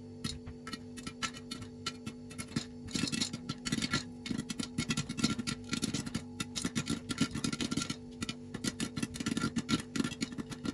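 Popcorn kernels popping in hot oil in a covered pot: scattered pops at first, then rapid, dense popping from about three seconds in.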